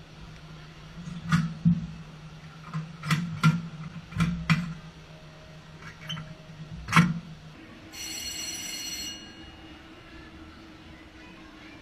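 Roller coaster machinery: a steady hum under a series of sharp metallic clunks, several coming in pairs. About eight seconds in there is a brief high ringing tone lasting about a second.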